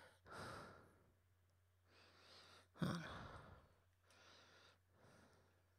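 Quiet breathing close to the microphone: about five soft breaths or sighs, one sharper about three seconds in, over a faint steady low hum.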